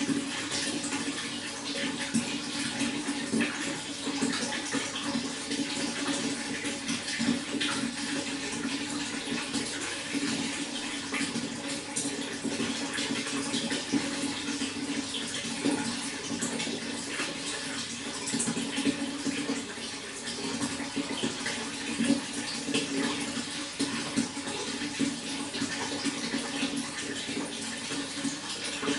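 Running water splashing and trickling steadily, with many small splashes throughout.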